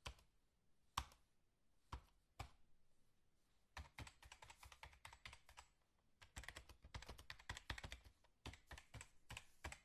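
Laptop keyboard keys clicking under a cat's paws: a few separate clicks, then runs of fast, uneven key clatter from about four seconds in and again from about six and a half seconds.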